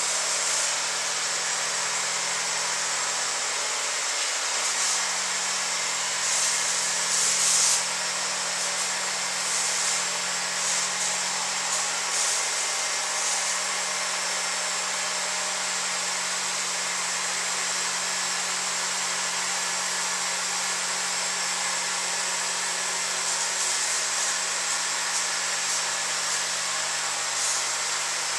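Small 1.5-volt DC motors and fans of a homemade four-motor hovercraft running steadily with a high whirring whine. They are over-driven from a 3.7-volt LiPo, which makes them overheat. A few brief louder surges come, the strongest about seven seconds in.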